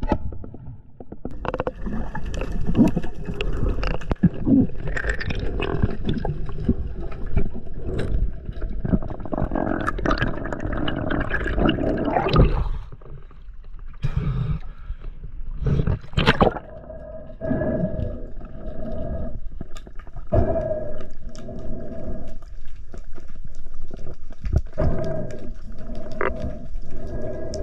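Water churning and gurgling around a diver's camera as he swims with a speargun, with scattered knocks. There is a louder knock about halfway through and a steady hum in the second half.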